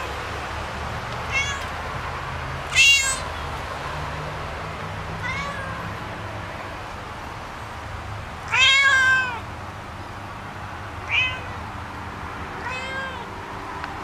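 A domestic cat meowing six times, each meow rising and then falling in pitch; the meows about 3 and 9 seconds in are the loudest, and the one near 9 seconds is the longest.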